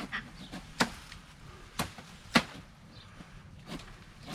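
Bolo knife chopping tree branches: about five sharp, irregular strikes, the loudest about two and a half seconds in.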